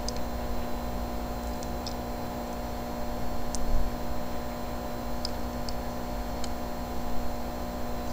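Steady electrical hum with a low hiss, and a few faint ticks scattered through it.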